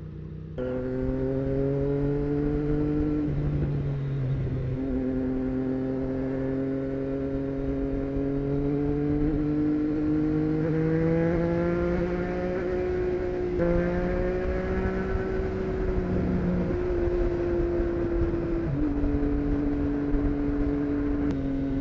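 2024 Triumph Street Triple 765 RS inline-three with a Racefit Growler full exhaust, pulling away and accelerating hard. The engine note climbs, drops sharply at a few upshifts, about three seconds and thirteen seconds in, then holds at a steadier cruise.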